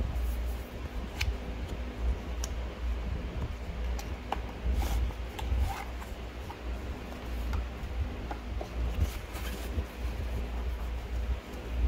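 Handling noise from unboxing: a cardboard box insert and a black fabric drawstring pouch being taken out, rubbed and turned over, giving scattered small clicks and brief rustles over a steady low rumble.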